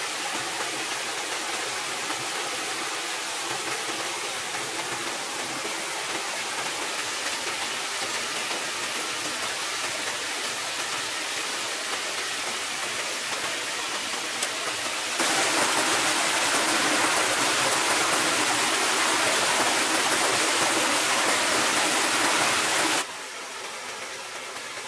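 Water rushing steadily over a small rocky cascade in a forest stream. About halfway through it turns abruptly louder and brighter for some eight seconds, then drops back quieter near the end.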